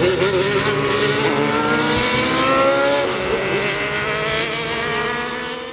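1991 Osella Fondmetal Formula 1 car's Ford Cosworth V8 accelerating hard, its pitch rising, dropping at an upshift about three seconds in, then rising again as the car draws away and fades.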